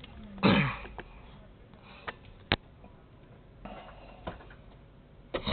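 A short breathy sniff from the person about half a second in, followed by a few sharp, light clicks and taps of handling inside a small vehicle cab.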